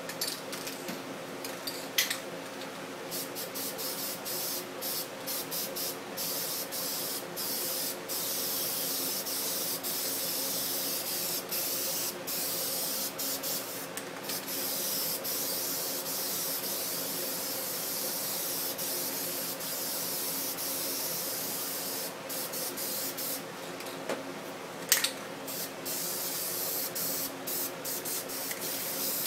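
Aerosol spray paint cans hissing in repeated bursts, some short and some held for several seconds, as paint is sprayed across a canvas. Two sharp knocks stand out, about two seconds in and a few seconds before the end, over a steady low hum.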